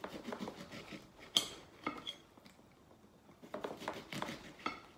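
Kitchen knife cutting lemons on a ceramic plate: the blade clicks and scrapes against the plate in a series of short knocks, with a pause in the middle.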